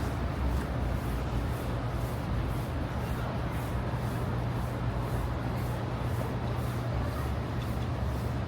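Street noise with a steady low engine hum from a vehicle running close by.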